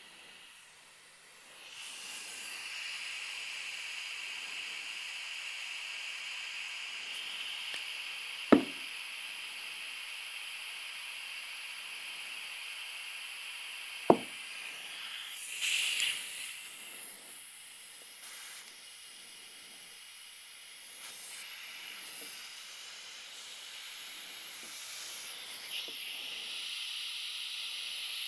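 Compressed air hissing steadily from an air compressor's tire inflator into a lawn tractor tire, with extra hiss leaking from the worn, cracked inflator and hose coupling. Two sharp pops, about six seconds apart, as the tire beads seat on the rim.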